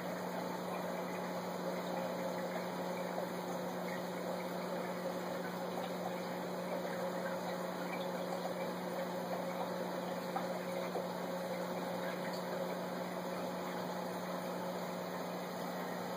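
Aquarium filter running: a steady low hum under an even hiss of moving, bubbling water.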